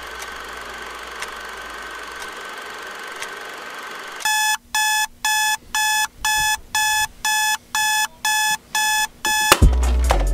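Digital alarm clock beeping, about two beeps a second for some five seconds, then cut off. A hip-hop beat with heavy bass starts near the end. Before the alarm there is a steady hum with a faint tick about once a second.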